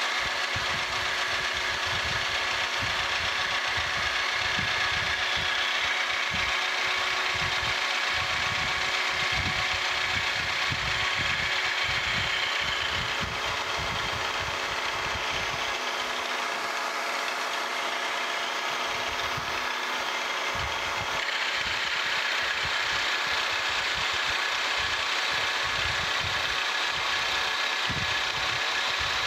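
Milling machine running an end mill across the side of a pillow block bearing housing, fed steadily along in a light cut: a steady hum of the spindle and drive with the hiss of metal being cut and chips flying.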